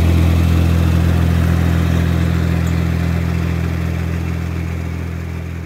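Tractor engine running at a steady speed, slowly fading out.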